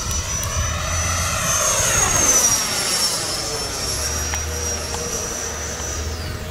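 FMS Super Scorpion's 90 mm electric ducted fan whining as the model jet flies a pass overhead, swelling to its loudest about two seconds in. The whine drops in pitch near the end.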